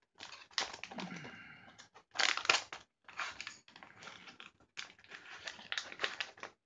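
A brown plastic MRE food pouch crinkling and tearing as it is pulled open by hand, in a run of irregular crackles and rips. The loudest rip comes a little past two seconds in.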